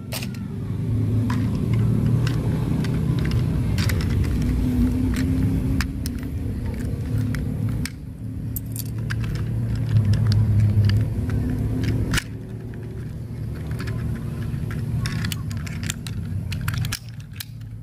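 Plastic clicks and snaps, many scattered ones, as a transforming toy robot car's parts are folded and clicked into place by hand, over a steady low rumble.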